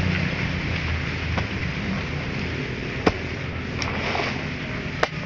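Steady outdoor hiss with a few sharp knocks, the two loudest about three and five seconds in, as a hand tool strikes the ground while digging a pit.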